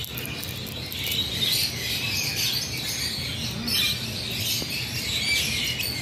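A continuous chorus of many small birds chirping and twittering, high-pitched and busy, with no single loud call standing out.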